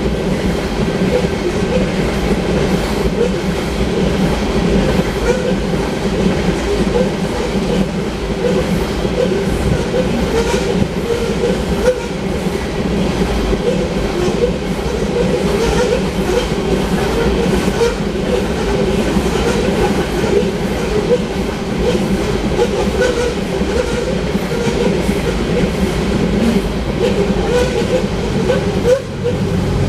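Long train of loaded ore cars rolling past, a steady heavy rumble with continuous clickety-clack of wheels over the rail.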